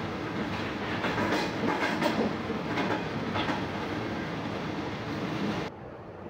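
Passenger train running along the track, its wheels clattering over rail joints over a steady rumble. About five and a half seconds in, the sound cuts off suddenly to a much quieter hum.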